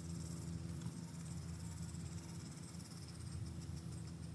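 Quiet outdoor background: a faint steady low hum under a thin, high insect buzz.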